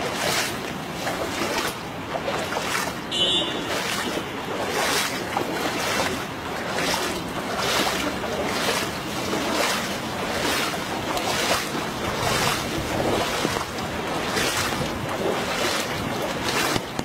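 Footsteps at a steady walking pace, a little under two a second, splashing through shallow floodwater on a paved path, with wind noise on the microphone.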